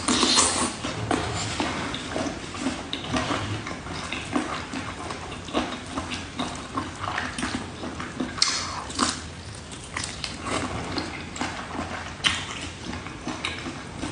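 Wet chewing and mouth smacking of someone eating spicy octopus: a continuous run of irregular moist clicks and smacks.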